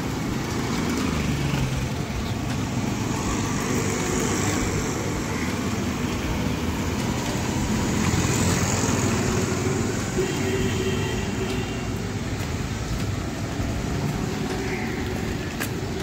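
Steady street traffic noise, with motor scooters and other vehicles running past on a wet road.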